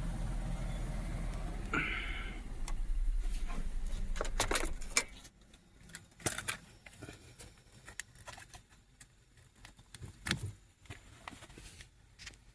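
2006 Toyota Sienna's V6 engine idling, then shut off about five seconds in, followed by scattered faint clicks and a jingle of keys.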